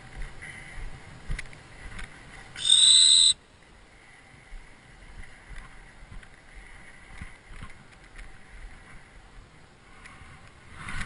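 A single loud, high-pitched blast on a gundog training whistle, lasting under a second, given to a young Labrador.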